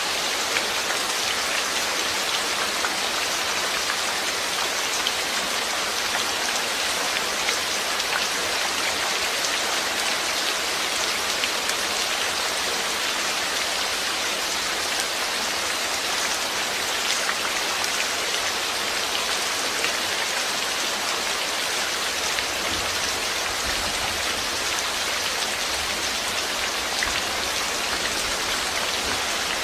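Steady rain falling, an even hiss with small drop ticks. A faint low rumble comes in about 23 seconds in.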